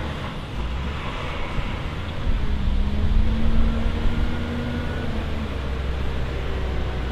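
New Holland W170D wheel loader's diesel engine working under load as the loader lifts a full bucket of chopped straw, getting louder about two seconds in, with a steady higher tone for a few seconds in the middle.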